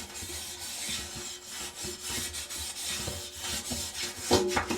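Toothbrush scrubbing the rubber door seal of a front-loading washing machine, quick repeated bristle strokes scraping black mildew build-up from around the seal's lip.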